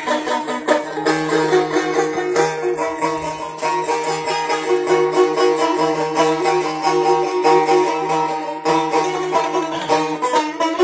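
A plucked string instrument playing a fast melody of rapidly repeated notes over a steady low drone.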